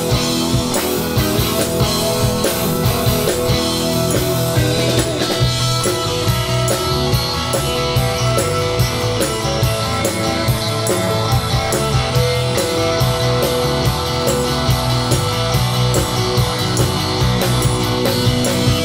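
Live rock band playing an instrumental break: electric guitars, bass and drum kit keeping a steady beat, with a tambourine.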